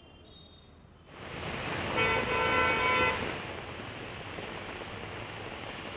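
Heavy rain and car tyres hissing on a wet city street, starting abruptly about a second in. A car horn honks for about a second, about two seconds in.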